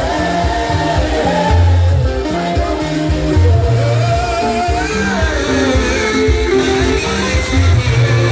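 Live gospel praise and worship music: a band with a prominent bass line, and voices singing a melody over it.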